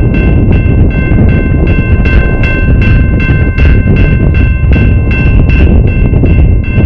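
Railroad crossing signal bell ringing in an even rhythm of roughly two to three strikes a second, over a loud, steady low rumble.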